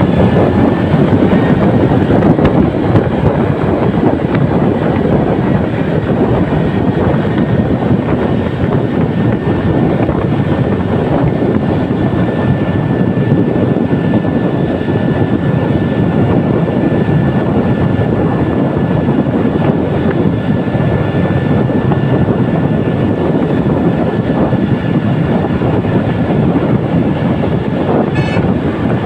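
Steady, loud running noise of a moving road vehicle, engine and road rush, with a faint steady high whine held through the middle.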